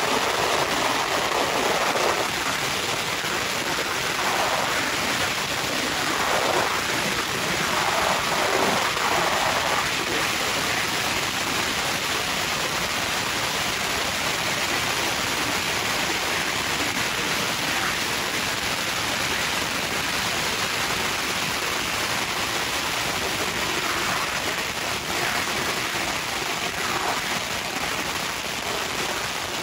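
Long strings of red Chinese firecrackers going off on the ground in a continuous, rapid crackle of small bangs.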